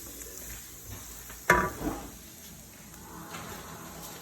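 A sharp clank of cookware about a second and a half in, followed by a smaller knock.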